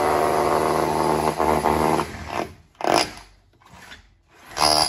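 Copper pipe scraping and rasping against the edges of a hole in the ceiling as it is pushed up through it: one long rasp of about two seconds, then two short, sharp scrapes about a second in from each other near the end.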